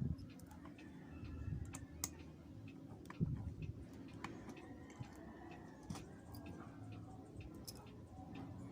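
Irregular small clicks and taps of tools on the plastic and metal parts of a GoPro HERO4 Silver being taken apart, over a low steady hum.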